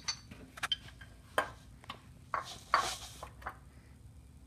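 Metal engine parts clinking and knocking as timing-belt pulleys, bolts and tensioner parts are handled by hand: a string of sharp clinks, then a short rattle about two and a half seconds in.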